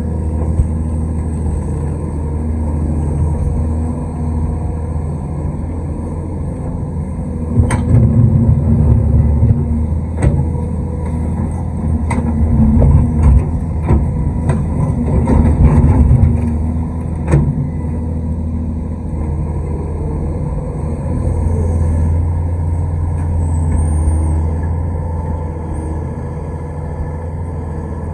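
Large excavator's diesel engine running steadily, getting louder and working harder for about ten seconds in the middle, with several sharp metallic knocks during that stretch.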